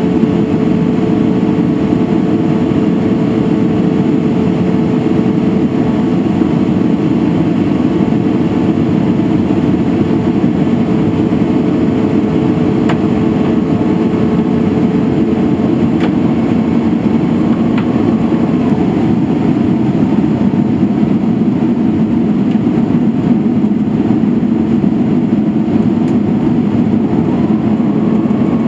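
Steady in-flight cabin noise of a Boeing 767-300ER, the drone of its Rolls-Royce RB211 engines and the rush of air past the fuselage heard from a seat over the wing. A faint hum in it fades out about two-thirds of the way through.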